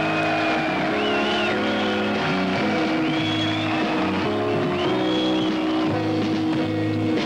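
Live progressive rock band playing: sustained chords that change every second or so, with a high wavering melodic line above them.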